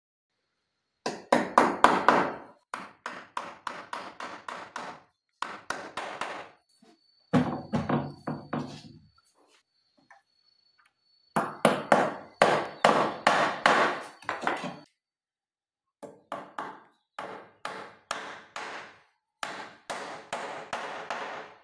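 Small hammer striking a steel door hinge and the wooden door and frame, driving the hinge home while a solid wooden door is hung. The blows come in quick runs of about three a second, broken by short pauses.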